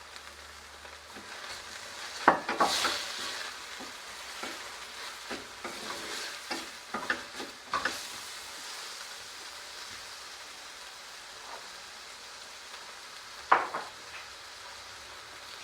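Chopped onions, ginger and garlic sizzling steadily in hot oil in a frying pan, stirred with a utensil that knocks against the pan now and then. The sizzle surges about two seconds in, and there is a sharp knock near the end.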